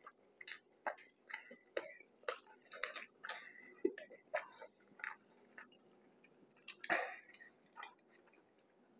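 Close mouth sounds of a person chewing a bite of a ground pork mac and cheese burger on bread: soft, wet clicks and smacks several times a second, thinning out after about five seconds, with one louder smack near seven seconds.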